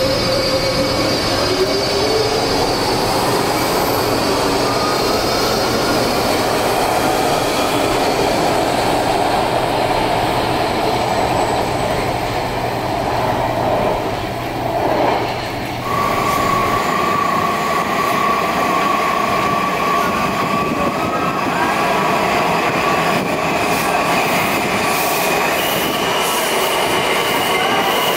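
A Baltimore Metro SubwayLink stainless-steel subway train pulls out of an underground station, its traction motors whining up in pitch as it accelerates, then running away down the tunnel. Partway through the sound changes abruptly to a Washington Metro (WMATA) train moving along an underground platform, with a steady high-pitched whine.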